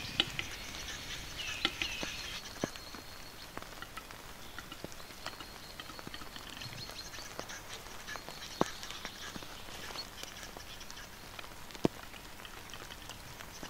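Western capercaillie lek: a displaying male's scattered sharp clicks, with two loud single clicks late on, over a faint scratchy high hiss. There is a short bird call about two seconds in.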